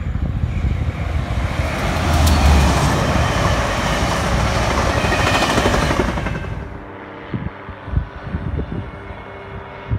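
Class 67 diesel locomotive passing close by with a train of passenger coaches: a heavy rumble loudest about two seconds in as the locomotive goes under, then the rushing noise of the coaches. About six and a half seconds in it drops away suddenly to a quieter background with a few thumps.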